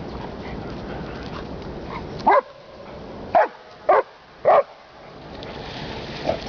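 A dog barking four times, short sharp barks starting a little over two seconds in, spaced about half a second to a second apart, over a steady background noise.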